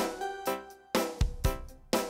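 Instrumental music with keyboard chords struck in a steady rhythm.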